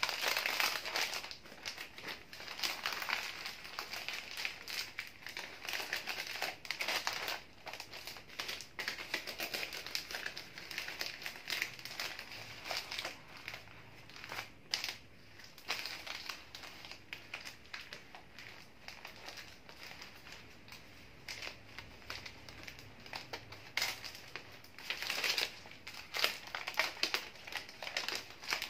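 White wrapping paper rustling and crinkling in irregular bursts as hands fold and gather it around a bouquet, softer for a few seconds past the middle.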